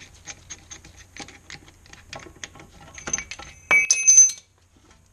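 Small metallic clicks as a rear brake caliper and its parts are handled, then a louder, ringing metal clink about four seconds in.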